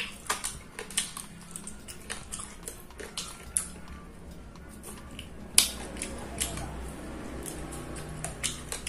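A person chewing food close to the microphone: irregular sharp mouth clicks and smacks, several a second, the loudest about five and a half seconds in.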